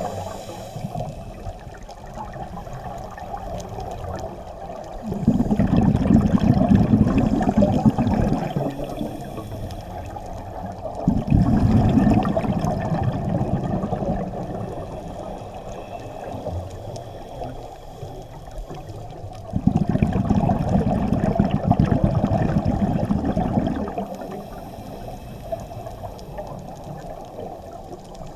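Scuba breathing heard underwater: three long gushes of exhaled bubbles from a regulator, about seven seconds apart, with a fainter hiss of breathing between them.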